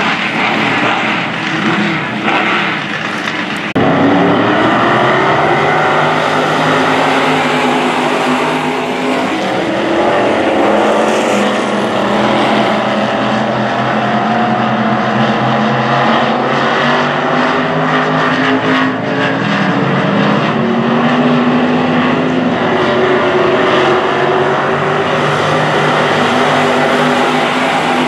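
Dirt-track stock car engines racing, several engines revving and easing off as the cars go through the turns. The sound is quieter at first and jumps abruptly louder about four seconds in, then holds steady.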